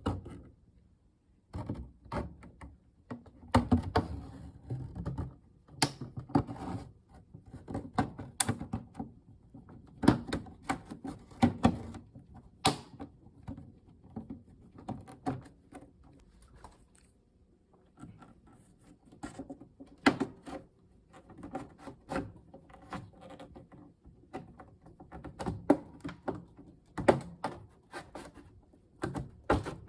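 Irregular clicks, taps and dull knocks of plastic and metal parts being handled while a microwave oven is taken apart, with short quiet gaps in between.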